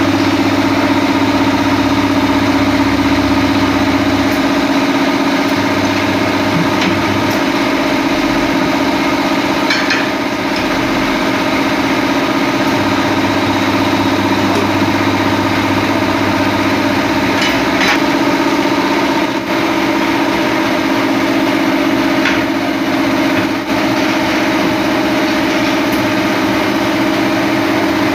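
Electric tyre-changer machine running: its turntable motor hums in stretches, cutting in and out as the foot pedal is worked, over a steady machine drone, with a few sharp metallic clicks.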